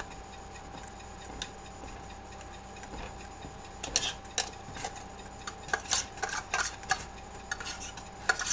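Metal kitchen utensil clinking and scraping against a metal pot, as irregular sharp clicks that start about halfway in.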